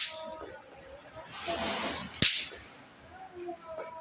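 A throw-down snap pop (bang snap) cracking sharply once as it hits the ground, a little over two seconds in.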